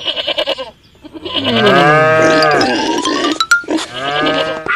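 Music with animal-like vocal sound effects in short pitched calls, and a rising whistle-like glide that ends in a sharp click about three and a half seconds in.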